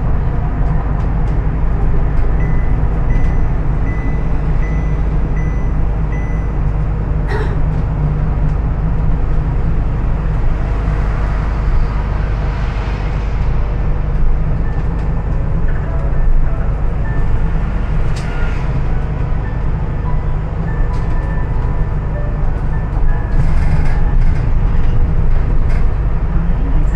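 Steady engine and road rumble heard from inside a moving bus, with scattered rattles and clicks. A repeated high beep sounds a few seconds in.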